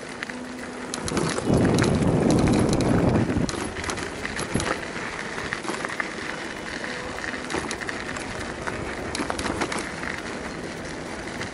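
Bicycles rolling along a gravel forest track: steady tyre noise with scattered crunches and rattles. A louder rumble runs from about one to three and a half seconds in.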